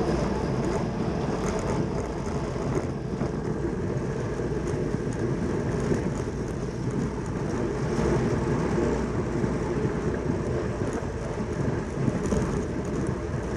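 Steady rushing noise of wind and bicycle tyres at racing speed during a track cycling race.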